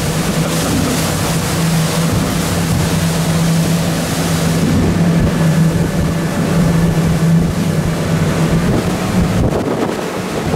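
Twin Mercury outboard motors running at speed with a steady drone, over the rush of the wake and wind on the microphone. The engine tone fades out about nine seconds in, leaving wind and water.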